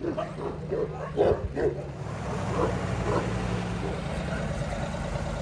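Dogs barking, several short barks in the first couple of seconds and fainter ones after, over a steady low hum.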